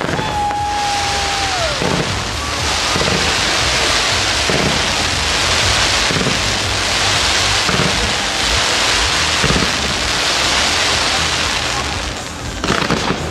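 Fireworks display: continuous dense crackling from exploding crackle stars, with a deep bang every second or two and a quick cluster of bangs near the end. A single whistle holds one pitch for about a second and a half at the start, then drops away.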